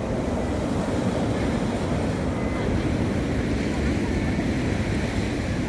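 Steady wash of sea surf breaking on a beach, with wind rumbling on the microphone.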